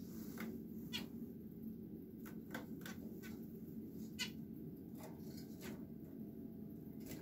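Caged zebra finches and society finches giving short, sharp calls, about a dozen scattered unevenly, over a steady low hum.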